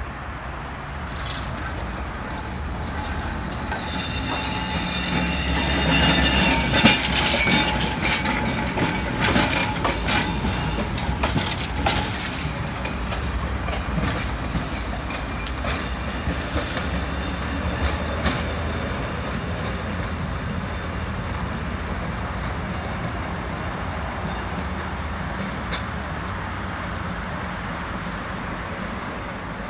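1903 Sydney electric freight tram car 24s passing and running away: its steel wheels clatter over points and rail joints with a high squeal, loudest about six to eight seconds in, then fading as it draws off.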